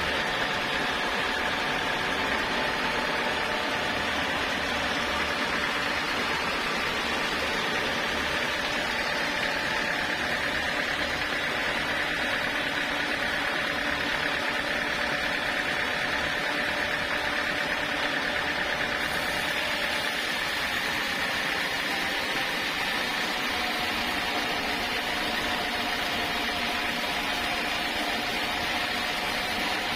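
Sawmill saw running steadily, with a high whine over several lower steady tones.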